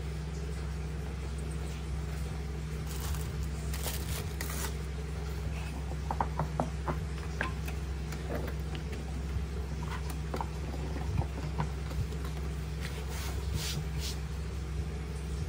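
Hands brushing and sliding over a large desk mouse pad: soft scrapes and a few light taps, with a cluster of small clicks about six seconds in, over a steady low hum.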